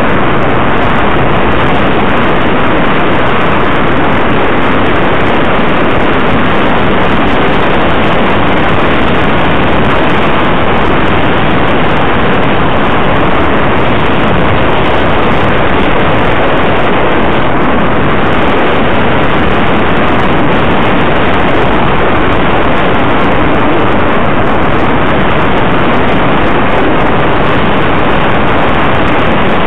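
Loud, steady rush of wind and road noise on the microphone of a camera carried along a road by a moving vehicle, with no clear engine tone or other events.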